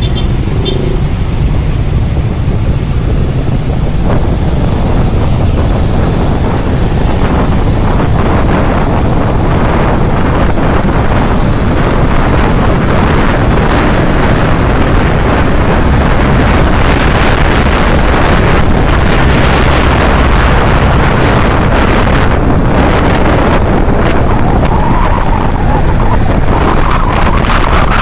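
Wind rushing over the microphone of a Kawasaki Ninja 650 motorcycle under way, with its parallel-twin engine running underneath. The wind noise grows louder from about eight seconds in as the bike picks up speed.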